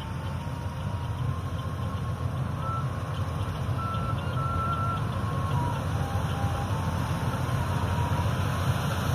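Tractor diesel engine running steadily, with a faint thin electronic tune above it, its notes stepping up and down in pitch.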